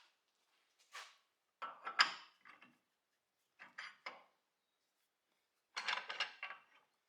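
Metal clanks and knocks of a lathe tool rest being changed: four short clusters of clatter, the loudest about two seconds in.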